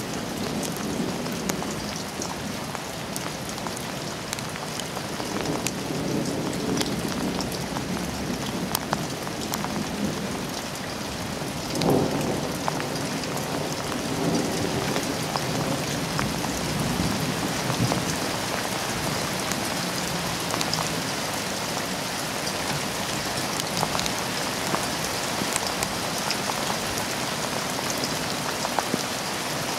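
Steady heavy rain, with close drops ticking on nearby surfaces. Thunder rumbles in low around five to seven seconds in, then a louder peal starts suddenly about twelve seconds in and rolls on for several seconds.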